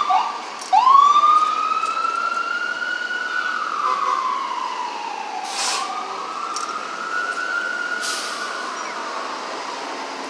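Emergency vehicle siren: a few quick rising chirps, then a wail sweeping slowly up and down in pitch. Two short hisses cut through it in the second half.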